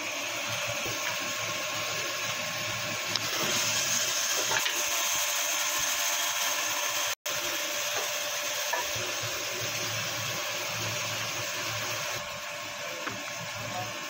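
Steady whirring machine noise, with a brief drop to silence about seven seconds in.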